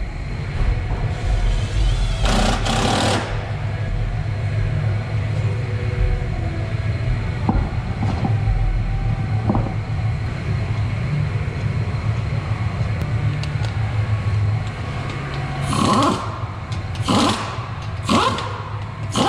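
Pneumatic impact wrench running a front wheel's lug nuts on, in short rattling bursts: one about two seconds in, then three about a second apart near the end. A steady low hum runs underneath.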